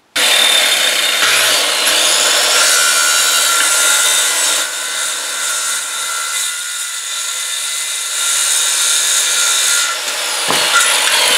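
Craftsman handheld circular saw running, its blade cutting through a dry wooden stick to trim off its end.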